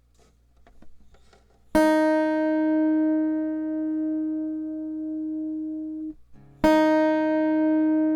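Acoustic guitar's high E string, tuned down a half step to E-flat, plucked open twice as a tuning reference: a single sustained note rings for about four seconds and stops, then is plucked again near the end and rings on. A few faint ticks of handling come before the first pluck.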